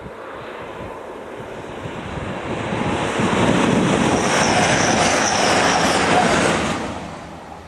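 Passenger train passing close by at speed: a rushing of wheels and air that builds over the first few seconds, stays loud for about three seconds with a high hiss on top, then falls away quickly near the end.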